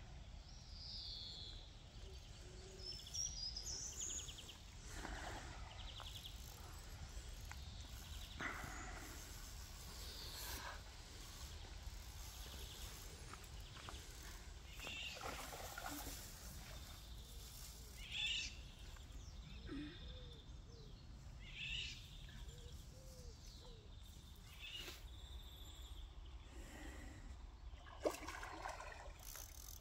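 Faint pond-side outdoor ambience: a steady low rumble of wind on the microphone, with scattered short bird calls and a sharp click near the end.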